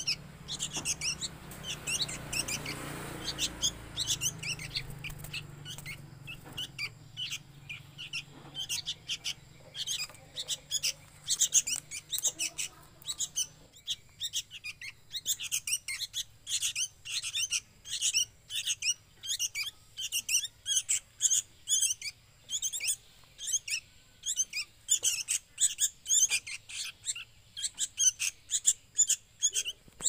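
Sooty-headed bulbul (kutilang) fledglings giving begging calls: quick, high chirps repeated two or three times a second, the chicks asking to be fed.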